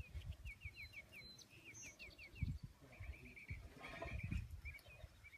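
Bird chirping in quick runs of short, falling notes, about six a second, in several bursts, with a few low thumps on the microphone.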